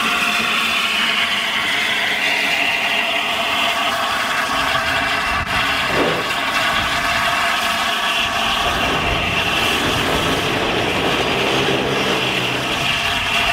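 LNER A1 Pacific steam locomotive 60163 Tornado letting off a steady hiss of steam, with a low rumble of traffic underneath.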